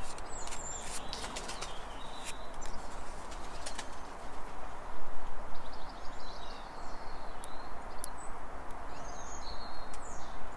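Birds chirping in the background over a steady hiss, with soft paper rustling and small clicks as double-sided tape is peeled and pressed onto a paper craft piece.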